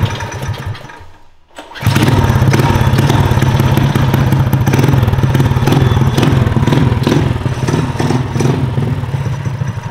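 Coleman B200RSV mini bike's small single-cylinder engine running, dying away about a second in, then starting again straight away and running steadily for the rest of the time.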